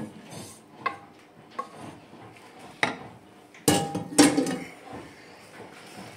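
A cooking utensil knocking against a pot of halušky and sauerkraut: a few light knocks, then two loud clanks about half a second apart a little past halfway, the second ringing briefly.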